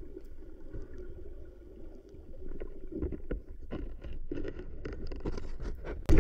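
Underwater sound as heard through an action camera's housing: a low steady rumble of moving sea water. Scattered clicks and knocks come in from about halfway, growing busier toward the end, with one sharp knock at the very end.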